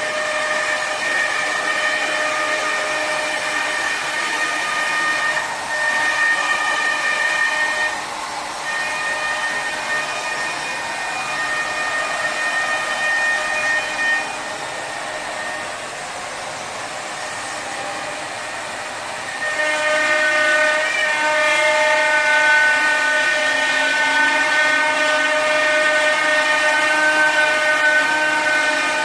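Electric plunge router cutting an arc through an MDF sheet: a steady high whine over hiss, its pitch shifting a few times as the bit's load in the cut changes, and getting louder and fuller about two-thirds of the way through.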